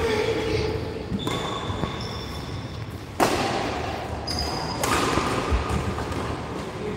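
Badminton play in a large indoor hall: a sharp crack of a racket hitting a shuttlecock about three seconds in, the loudest sound, a second smaller hit near the five-second mark, and short high squeaks of court shoes on the mat.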